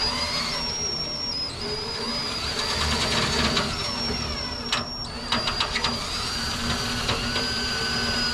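Electric drill running, boring a new hole through a tool box hinge: a steady high motor whine that shifts slightly in pitch as it loads, briefly stopping and restarting about five seconds in.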